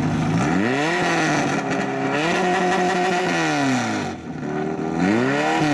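Portable fire pump's engine revved up from idle and held at high revs with a brief dip, dropping back about four seconds in, then revved up sharply again near the end.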